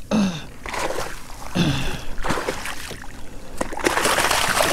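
A hooked flounder thrashing and splashing at the surface beside a landing net, loudest near the end. Two short, falling, voice-like calls come earlier.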